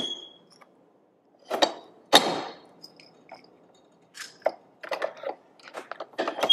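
Hand-operated pin-back button press: its steel dies clunk and click as they are swung round and seated and the press is worked, about a dozen separate metallic knocks with a brief ring, the loudest about two seconds in.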